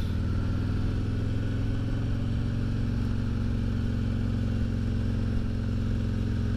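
Harley-Davidson Ultra Limited 114's V-twin engine running at a steady speed while riding.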